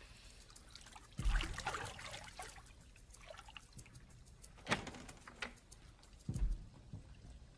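Water trickling and splashing, with three louder splashes carrying a dull thump: about a second in, midway, and near the end.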